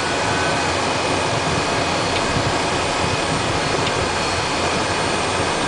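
Cessna Citation I's twin Pratt & Whitney JT15D turbofans running at low taxi power, heard inside the cockpit as a steady rush with a faint high whine.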